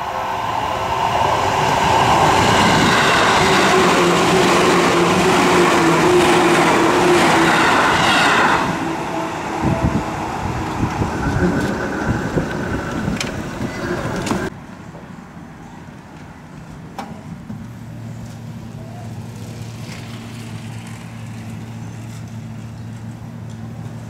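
Seibu Kokubunji Line train rumbling past over a level crossing, wheels on rails, with the crossing's warning bell ringing. About 14 seconds in, the sound cuts off abruptly to quieter street noise with a low steady hum.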